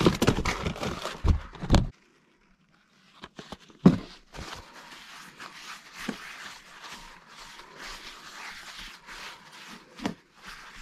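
Rummaging in a clear plastic storage tote, then a knock and a paper towel wiping olive oil around a cast iron skillet in quick, repeated rubbing strokes.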